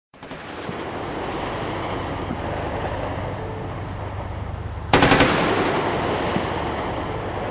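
A burst of rapid gunfire, about five shots in quick succession about five seconds in, over a steady noisy background.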